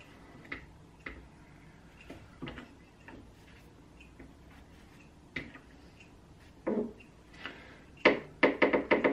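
Light metallic clicks and taps from the labyrinth seal and pusher being pressed onto the lathe spindle by the tailstock. Near the end comes a quick run of sharp knocks, about six a second.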